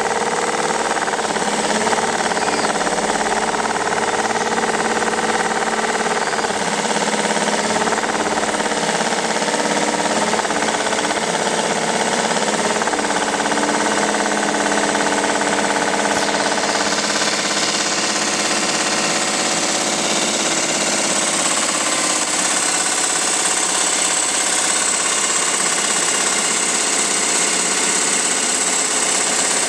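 A model boat's live steam engine running steadily on the bench under steam from its butane-fired boiler, a fast, even mechanical chatter as it turns the variable-pitch propeller. A higher hiss comes up a little past halfway.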